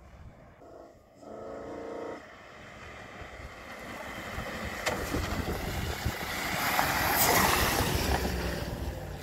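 Mitsubishi Delica L400 van with a swapped-in Toyota 1UZ-FE VVT-i V8 driving up a gravel track and passing close by, exhaust fitted. The engine note and tyre noise on gravel build steadily, are loudest about seven seconds in, then start to fade as it goes past.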